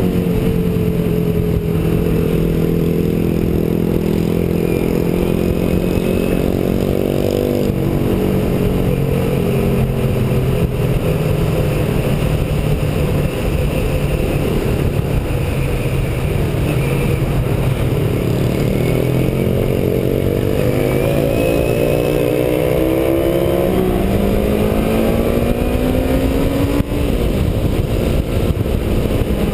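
Sport motorcycle engine heard from the rider's seat while riding, with wind rushing on the microphone. The engine note falls sharply about seven seconds in, then climbs steadily for a few seconds near the end as the bike accelerates, and drops again.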